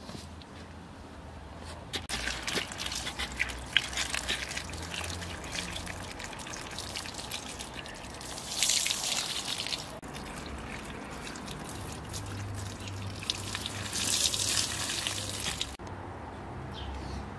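Water poured from a glass jug splashing over tomatoes and green peppers on a plate and dripping off as the vegetables are rinsed. It starts about two seconds in, swells louder twice, and cuts off suddenly near the end.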